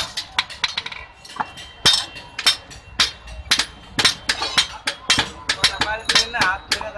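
A blacksmith's hammers striking a steel boti blade on a small iron stake anvil: rapid ringing blows, about three or four a second, from a hand hammer and a sledgehammer, with a brief pause about a second in.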